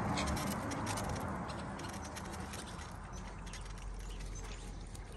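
Several cats crunching dry kibble from plastic trays: a rapid, irregular patter of small crunching clicks, over a background rush that fades during the first couple of seconds.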